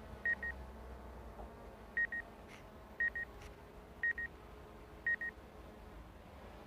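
DJI drone remote controller sounding a warning: short high double beeps repeating about once a second, the alert given when the drone is low on battery or in strong wind.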